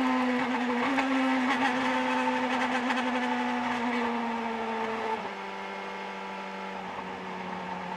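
Indy car engine running at high revs, heard from the onboard camera: a steady note slowly falling in pitch, which drops lower and quieter about five seconds in.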